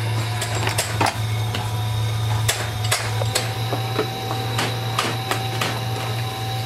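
Roller machine for battery plates running with a steady low hum, while pasted lead-acid plates and their paper sheets are fed through and handled, giving irregular clicks and taps.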